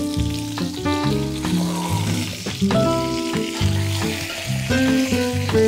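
Chicken sizzling in hot butter in a cast iron grill pan, over a steady music bed.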